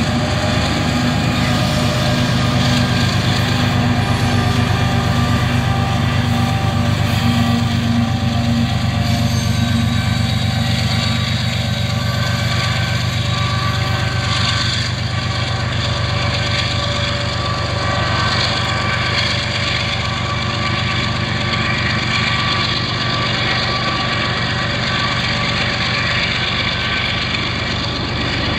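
Diesel locomotive of a Union Pacific freight train running, a steady low engine hum with the rumble of the passing train.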